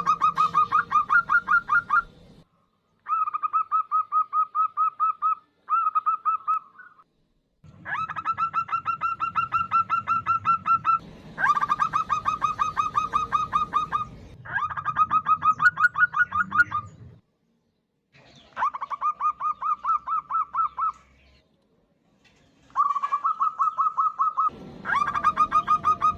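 Female zebra dove (perkutut) giving rapid pulsed calls, several notes a second, in repeated bouts of two to three seconds with short pauses between. The call is used to lure males.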